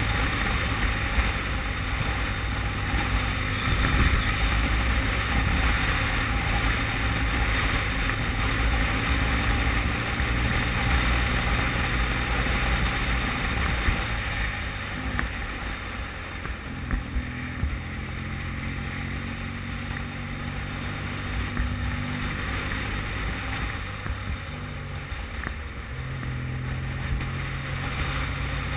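Motorcycle engine running at road speed under heavy wind noise on the microphone. About halfway through the wind eases and the engine note drops and changes as the bike slows.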